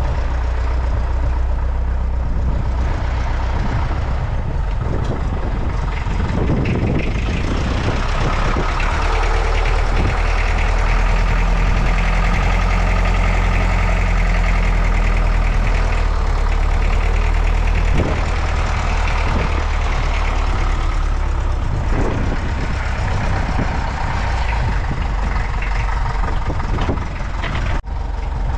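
A heavy machine's engine running steadily, working harder for a stretch in the middle, with a few sharp knocks and clanks over it.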